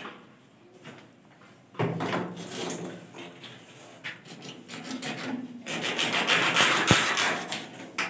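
Rough scraping and rubbing as a PVC conduit pipe is worked against a chased brick wall. It starts about two seconds in and grows loudest near the end, with one sharp knock.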